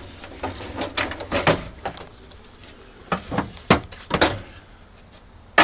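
Wooden kitchen furniture and tableware being handled: a string of short knocks and clatters, loudest about three to four seconds in.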